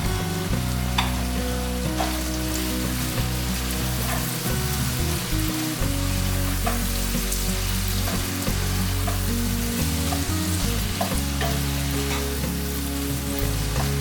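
Food sizzling in a frying pan, a steady hiss with occasional sharp clicks of a utensil stirring against the pan.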